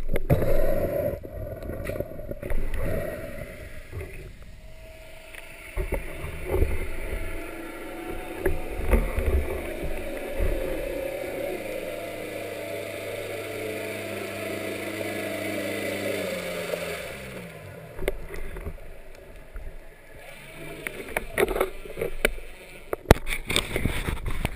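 Underwater camera noise of a spearfisher swimming and rising to the surface: water rushing and knocks, with sharp splashes and clicks near the end at the surface. Through the middle a steady motor-like hum drones, then falls in pitch as it fades out.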